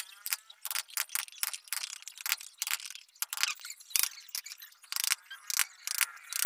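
A chisel being struck again and again as a mortise is chopped by hand into a wooden stool leg: sharp, irregular wooden taps and knocks, about three a second.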